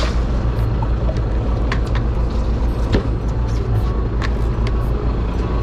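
Fishing boat's engine running steadily, a loud low rumble, with scattered clicks and knocks from buckets and gear being handled on the deck.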